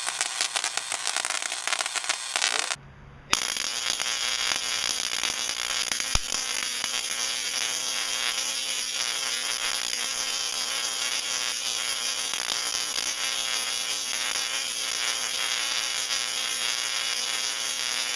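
Spark-gap Tesla coil firing: electric discharges from its toroid crackling and buzzing in a steady, harsh rasp. The sound breaks off for a moment about three seconds in, then carries on unchanged.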